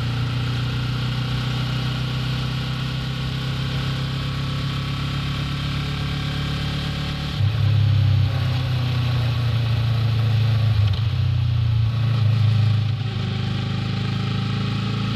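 Yamaha R3 motorcycle's parallel-twin engine running steadily as the bike is ridden. The engine gets louder from about seven seconds in until about thirteen seconds in, then settles back.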